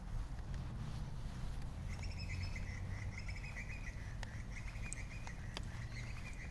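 A bird calling in one long rapid trill that starts about two seconds in, over a steady low rumble and a few faint ticks.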